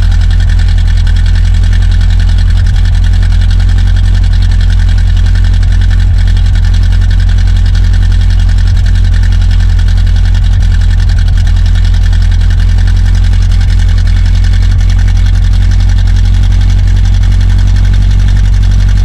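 Studebaker V8 engine in a 1949 Studebaker 2R16 truck idling steadily, heard close up at the muffler tailpipes, with a loud, deep exhaust note.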